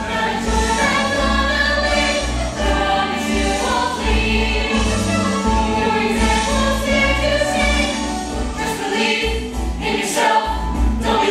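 A group of voices singing a musical-theatre number together over instrumental accompaniment with a pulsing bass line.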